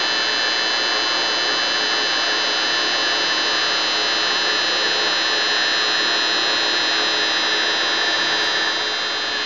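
Ikeda RM-1875 radial arm drill press running steadily, a continuous mechanical whir with several steady high tones that does not change.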